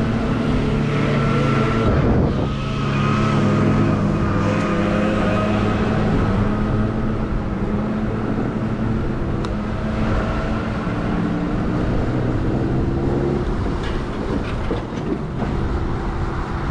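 Huck Cycles Stinger 3000 electric motorbike at a steady cruise: a steady electric motor whine of several tones over wind buffeting and road noise. The whine fades a little in the last few seconds.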